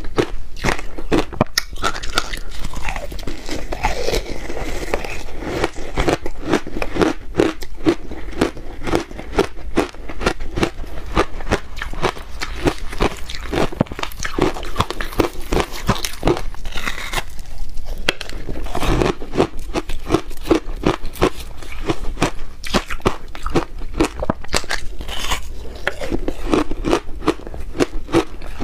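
Close-miked crunching and chewing of frozen matcha ice: a continuous run of rapid, crisp crunches as the ice is bitten and ground between the teeth.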